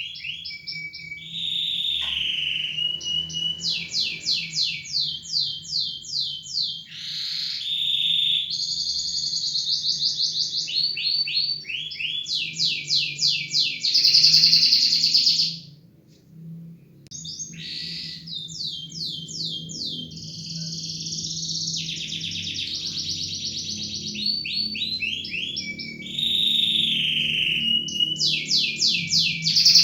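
A small songbird singing loud, high trills of rapidly repeated notes in phrases a few seconds long, one after another, with a brief break about halfway through.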